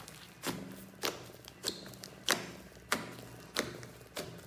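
Thick clay-filled slime being kneaded and squeezed by hand, giving sharp wet pops and squelches as air pockets burst, about seven in a steady rhythm a little over half a second apart.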